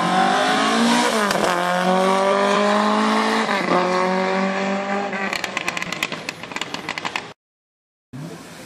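Rally car accelerating hard past the spectators, its engine rising in pitch, dropping with an upshift about a second in and again a couple of seconds later, then fading as it pulls away. A quick run of sharp crackles follows before the sound cuts off abruptly.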